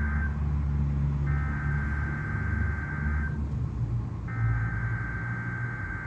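Emergency Alert System SAME header: bursts of shrill warbling digital data tones, each about two seconds long with a second's pause between them, encoding a Required Weekly Test. They are played through a speaker from a Midland WR-120 weather radio, with a low hum underneath.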